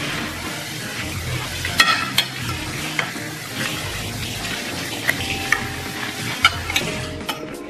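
Metal fork and spoon scraping rice across a ceramic plate, with sharp clinks now and then, over a steady close hiss of eating and chewing.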